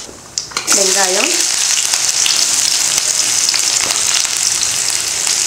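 Chopped onion frying in hot oil, a steady sizzle that starts suddenly under a second in as the onion goes into the pan.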